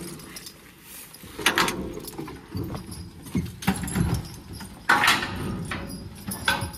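Draft-horse harness being taken off: irregular knocks and rattles of the harness's metal hardware and leather, with a few louder clanks, as the horse shifts its hooves.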